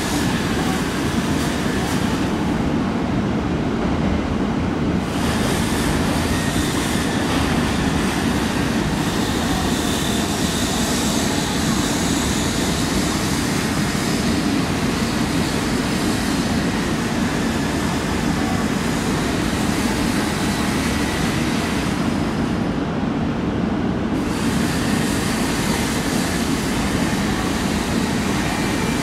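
JR East E926 East-i Shinkansen inspection train running slowly into the station platform: a steady low rumble that holds throughout.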